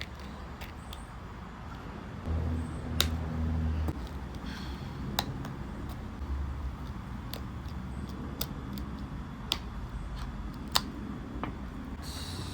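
Scattered sharp clicks and snaps of small hard trim parts being pried and worked by hand, about six spread over the stretch. A low hum sounds for about a second and a half a couple of seconds in.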